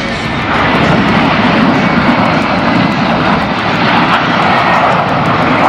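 Jet engines of a formation of four military jets flying past overhead: a steady, loud rush of engine noise.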